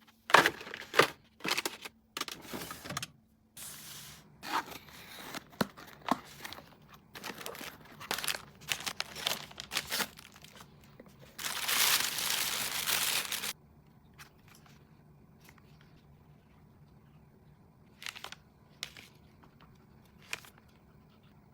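Plastic packaging crinkling and tearing with clicks and knocks as items are handled, unpacked for a fridge refill. About twelve seconds in comes a steady rushing noise of about two seconds, followed by a quieter stretch with only a few scattered clicks.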